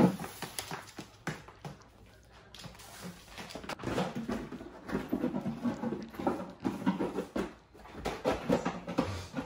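A puppy in a plastic cone collar moving about on a hardwood floor: irregular light clicks and knocks from its claws and the cone.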